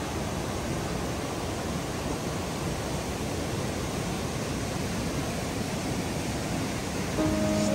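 Whitewater of the Linville River rushing over rock cascades at Linville Falls: a steady, even rush of falling water. Background music comes in near the end.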